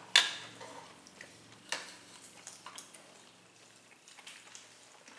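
Close-up eating and food-handling sounds while chicken is eaten: scattered sharp clicks and crackles, the loudest just after the start and another just under two seconds in.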